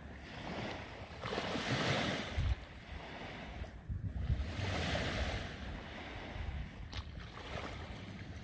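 Small waves lapping and washing up onto a sandy beach, the hiss of the wash swelling twice, over a low rumble of wind on the microphone.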